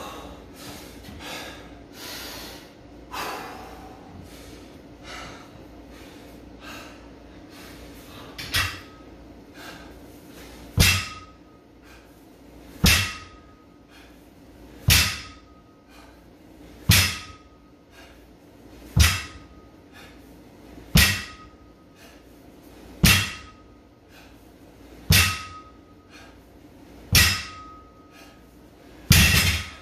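A 135-lb loaded barbell is set down on a rubber floor mat once per deadlift rep, about every two seconds. Each touchdown is a heavy thud followed by a short metallic ring from the bar. The first, about eight seconds in, is lighter, and eleven follow in a steady rhythm.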